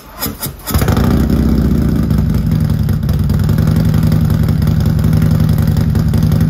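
Harley-Davidson Milwaukee-Eight 114 V-twin with a Fuel Moto Jackpot 2-into-1 exhaust starting up: a brief crank, firing in under a second, then a steady idle.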